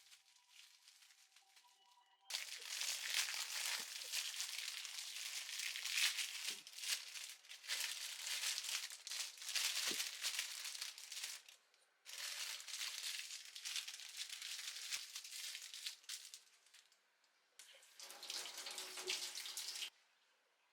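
Steady kitchen hiss in three long stretches, each starting and stopping suddenly, with a few small knocks.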